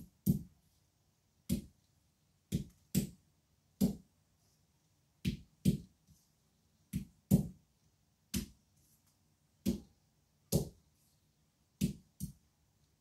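Green olives being cracked with a hand-held stone on a board, a step in curing them: sharp knocks about one a second, often in quick pairs.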